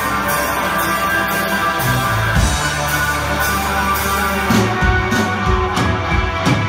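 Post-punk band playing live: electric guitar and bass over a steady drum beat, with no singing.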